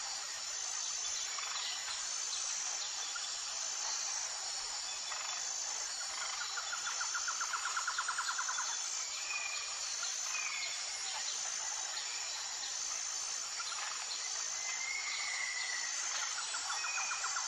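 Steady high shrilling of insects such as crickets, with a faster pulsing trill twice and a few short bird chirps over it.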